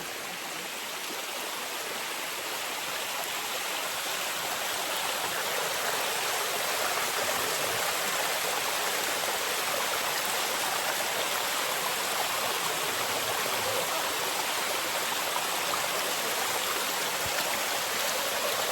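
A small waterfall and its stream: water running steadily over rocks in an even rush, growing a little louder over the first several seconds and then holding steady.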